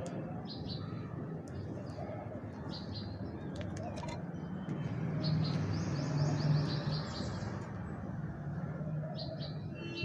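Short high bird chirps in small groups every couple of seconds, over a steady low cooing of pigeons that swells about five to seven seconds in.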